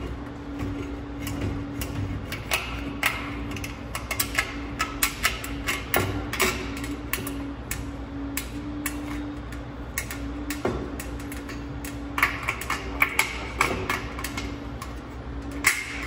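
Straight-cut aviation snips biting through the flange of a light-gauge steel stud track, an irregular run of sharp metallic clicks and crunches in two busy spells, over a steady low hum.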